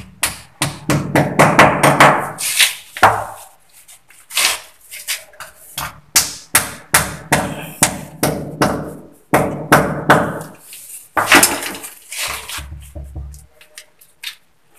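A hammer tapping plastic wall plugs into holes drilled in a tiled wall: a long series of uneven blows, with short pauses about four seconds in and again near the end.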